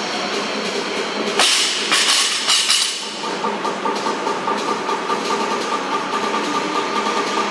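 Barbell loaded with rubber bumper plates dropped to the gym floor: one loud bang about a second and a half in, then two or three weaker bounces within the next second. A steady mechanical drone runs underneath, with a faint steady whine joining it from about three seconds in.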